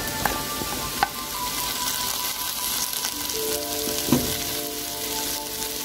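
Hot coconut oil sizzling steadily in a nonstick pan as sliced bitter gourd is tipped in on top of frying shallots and garlic, with a few light knocks in the first second.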